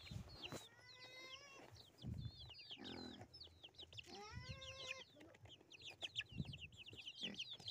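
Young chickens peeping and cheeping, many short, high calls overlapping, as they crowd a hand and peck feed from it. A few longer, lower calls come in about a second in and again near four seconds, with a few soft thumps.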